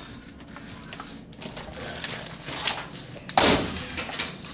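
Shuffling and handling noise as a person crawls out from under a kitchen sink, then a single loud knock from the sink cabinet door about three and a half seconds in.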